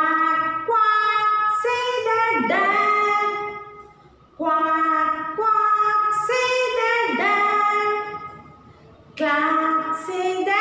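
A woman singing a nursery rhyme about animals and the sounds they make, unaccompanied, in three phrases with short pauses between them.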